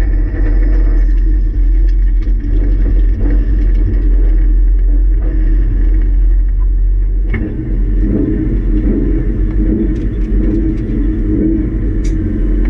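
Subaru Impreza rally car's flat-four engine and drivetrain heard from inside the stripped cabin, running under load at speed as a steady loud rumble. A few clicks and one sharp knock about seven seconds in, after which the engine note grows stronger.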